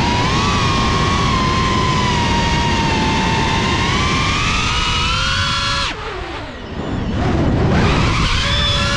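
GEPRC CineLog35 FPV drone's brushless motors whining, the pitch drifting up and down with throttle. About six seconds in the whine drops away sharply as the throttle is cut for a manoeuvre, then climbs back about a second and a half later.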